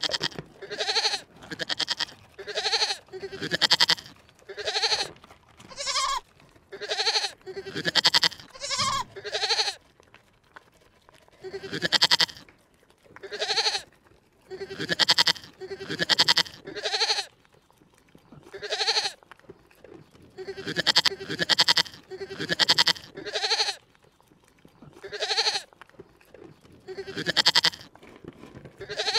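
An animal calling over and over, short pitched calls about one a second, with a few brief pauses between runs.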